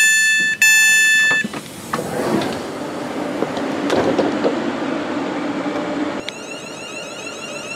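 Train door alert beeping, a long pitched tone that repeats, while the door-open button is lit, followed by the power doors opening and general clatter as the passenger steps off. About six seconds in, the London Northwestern electric multiple unit's motors take over with a steady whine that slides up and down as the train moves off.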